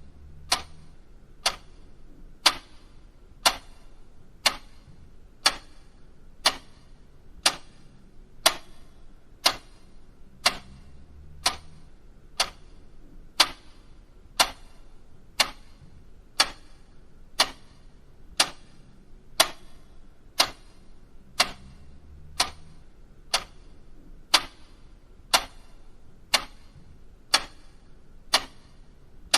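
Mechanical clock ticking steadily, one sharp tick about every second.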